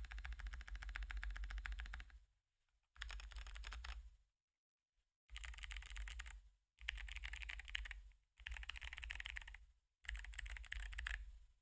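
Fast typing on a 60% mechanical keyboard with clicky Kailh Box Jade switches and XDA keycaps. The keystrokes come in quick runs of one to two seconds, six of them, with short pauses between.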